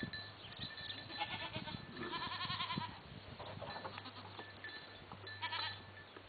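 Goats bleating: a short call about a second in, a longer quavering bleat around two seconds in, and another short one near the end.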